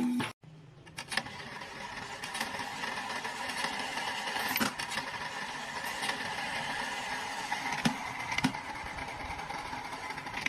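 Machinery running steadily in a workshop, a constant hum with a few sharp clicks or knocks spread through it.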